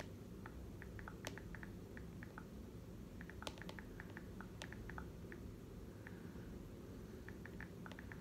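Faint typing: short, irregular runs of light clicks, over a steady low room hum.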